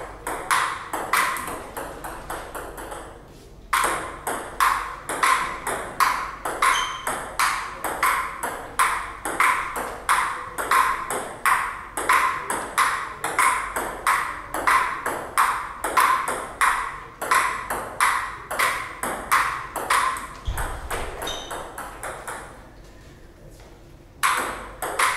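Table tennis ball clicking back and forth off the bats and table in rallies, a few hits a second. There is a short pause about three seconds in and a longer one near the end, between points.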